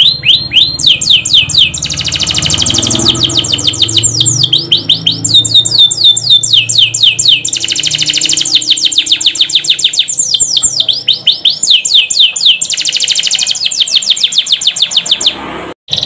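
Domestic canary singing a long, loud song of rapid trills: runs of fast repeated notes that each slide downward, with some phrases rolling quicker than others. The song cuts out for a moment near the end.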